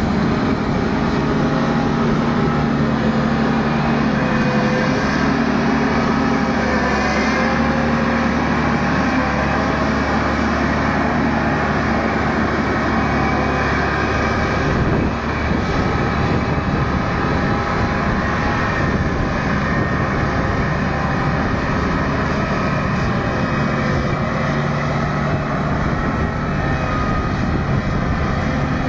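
Claas Lexion 660 combine harvester's diesel engine and machinery running steadily as it drives across the field, an even, continuous sound with no breaks.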